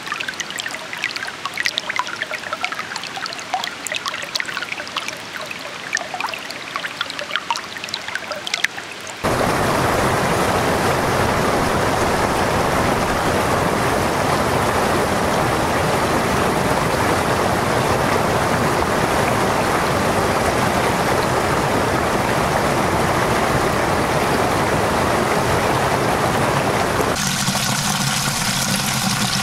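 Shallow mountain brook trickling and babbling over stones, with many small splashes and drips. About nine seconds in, the sound jumps abruptly to the loud, steady rush of a wider stream pouring over a low weir, which changes character near the end.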